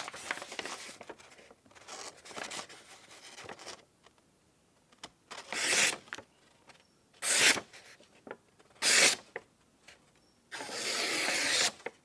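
A freshly stropped Schrade SCHF37 knife slicing paper to test its sharpness. There is rustling handling of the paper first, then three short slicing sounds about a second and a half apart, and a longer slice near the end.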